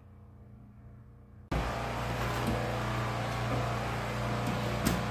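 Faint room tone, then about a second and a half in a loud, steady motor noise with a low hum starts abruptly and runs on, with a few sharp clicks over it.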